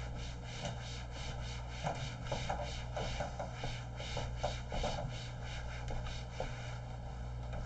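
Whiteboard eraser rubbed back and forth across a whiteboard, a run of short scratchy wiping strokes, a few a second, over a steady low hum.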